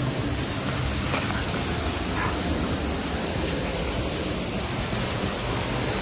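Steady rushing of Hedge Creek Falls, water pouring down over rock.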